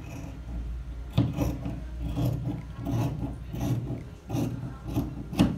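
Fabric scissors cutting through folded cotton fabric in a series of about eight short snips, working around a curved cut.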